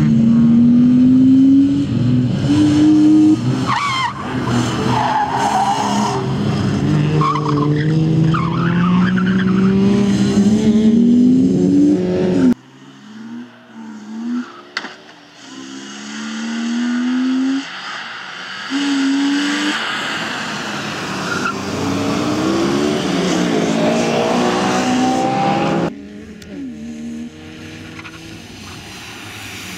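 BMW E36 320's straight-six engine revving hard, its pitch climbing and dropping back again and again through gear changes, with tyres squealing and skidding through the corners. The sound breaks off suddenly twice, and is fainter after the second break.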